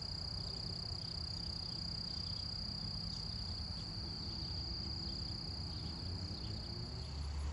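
Steady, high-pitched insect trill over a low rumble, cutting off abruptly near the end.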